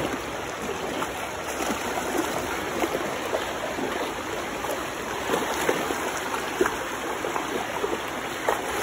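Shallow river running fast over rocks: a steady rush of moving water.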